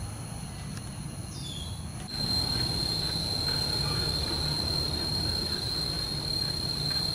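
Outdoor ambience: a steady high-pitched insect drone over a low rumble, getting suddenly louder about two seconds in. A couple of faint bird chirps come about a second in.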